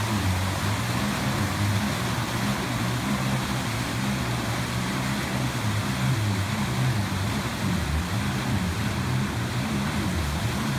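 AlumaPro rescue personal watercraft's engine running, its pitch rising and falling as the throttle is worked, over the rush of whitewater around the hull.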